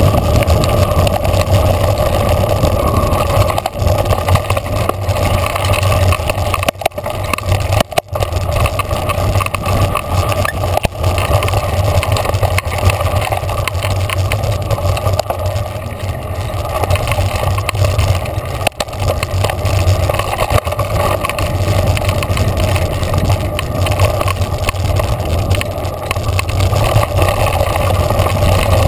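Mountain bike riding fast down a dirt trail: a loud, steady rumble of wind on the camera's microphone mixed with the tyres rolling over the dirt.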